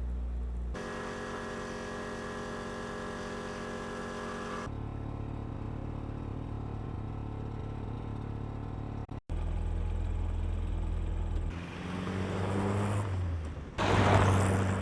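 Car engine running, in several short clips joined one after another, the pitch rising briefly near the end.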